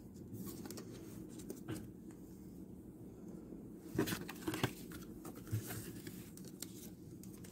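Paper and plastic handled by hand on a desk: a folded card and a plastic photocard sleeve rustling, with a few soft taps and clicks, the sharpest about four seconds in and again half a second later. A steady low hum runs underneath.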